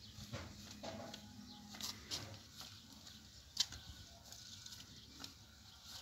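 Faint soft pats and slaps of thin flatbread dough tossed from hand to hand to stretch it, with a few sharper slaps standing out.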